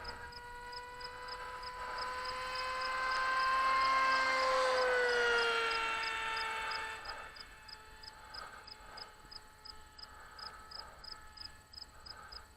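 Electric motor and propeller of a radio-controlled model aircraft, a steady whine that grows louder, drops in pitch as it passes about five seconds in, then fades to a fainter hum.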